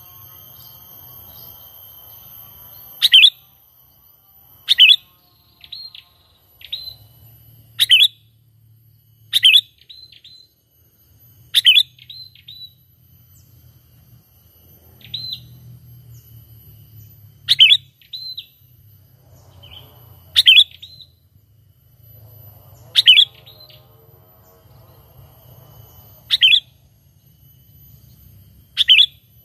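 Sooty-headed bulbul (kutilang) calling: short, loud calls repeated about a dozen times, one every one to three seconds.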